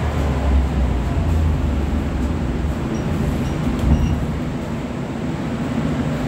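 Interior running noise of a Budapest M3 metro train slowing into a station: a continuous low rumble that eases off in the second half as the train comes to a stop.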